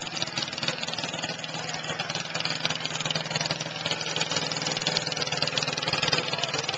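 Small garden tractor engine running steadily at parade pace, with a fast, even firing rhythm, growing a little louder as it comes closer.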